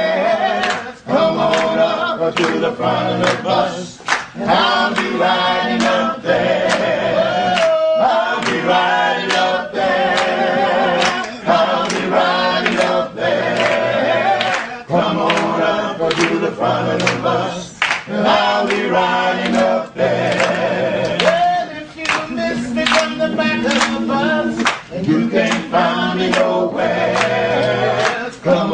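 A choir singing, with short sharp beats keeping time through the song.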